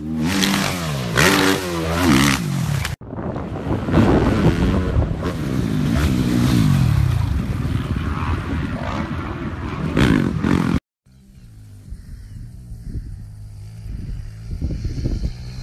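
Dirt bike engines revving up and down as the bikes are ridden hard over jumps. The sound breaks off abruptly about 3 and 11 seconds in as one clip gives way to the next. After the second break the engine sound is quieter and steadier.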